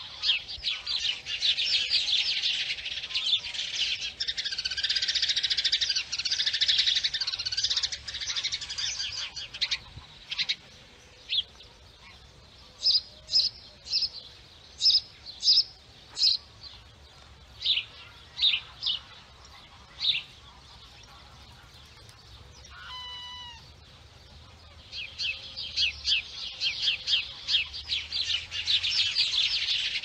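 Small birds chirping in a dense chorus, thinning to separate chirps about a third of the way in. About three-quarters of the way through comes one short call from a waterbird, and the dense chirping picks up again near the end.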